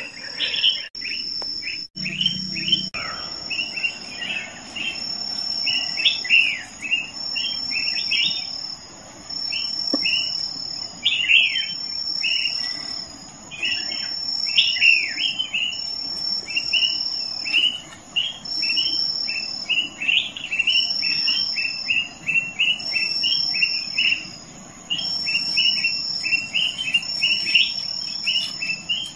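Insects calling in a high, steady tone that pulses on and off every second or two, over a busy run of short, falling bird chirps several times a second. There is a brief rustle about two seconds in.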